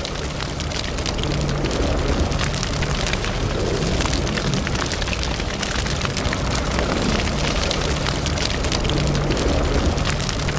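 Ford F-150 pickup driving on a wet, slushy road, heard from inside the cab: steady engine and tyre noise with dense crackling clicks over it, typical of tyres throwing slush and spray.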